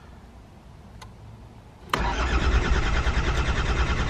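Toyota Hilux Surf's 2L-TE turbodiesel cranking on the starter from about two seconds in, after a quiet pause with a faint click, in an even fast rhythm. It is fuelled with a near 50-50 blend of filtered waste engine oil and diesel.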